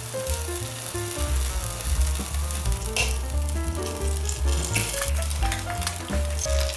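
Toast-and-ham sandwiches frying in oil in a pan, sizzling steadily as raw egg is poured into the holes in the bread. Background music with a steady bass line plays over it.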